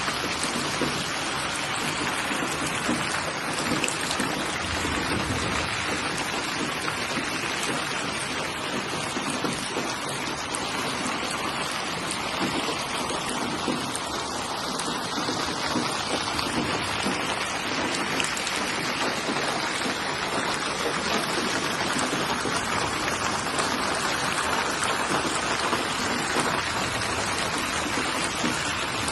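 Steady rain falling, an even, dense patter of drops with no breaks.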